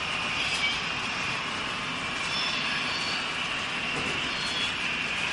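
HO-scale model train running on the layout track: a steady rolling rumble and hiss, with faint high-pitched whines coming and going.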